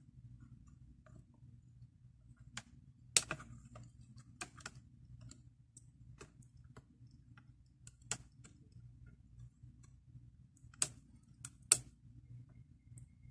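Scattered small clicks and taps, a few sharper ones seconds apart, as a slim tool pries at the circuit board and ribbon-cable connector inside an opened handheld Vingcard service terminal, over a faint low hum.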